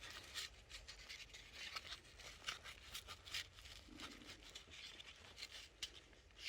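Faint, intermittent rubbing and scraping of a backpack's fabric strap being worked through its buckle.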